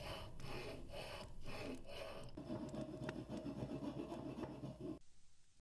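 Faint rustling and scratching of paper being handled and shuffled, with small irregular clicks. The sound cuts off suddenly about five seconds in.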